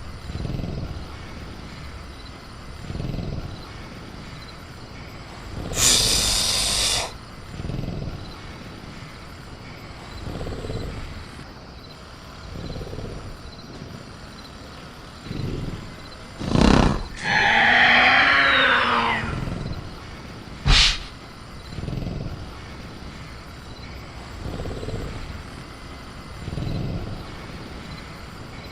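Designed sound effect of a caged velociraptor: low growling breaths recur about every two seconds, with a burst of hissing noise about six seconds in. Near the middle a sharp metal bang of the cage being rattled is followed by a screeching call of about three seconds, then another sharp bang. Faint steady cricket chirping runs underneath.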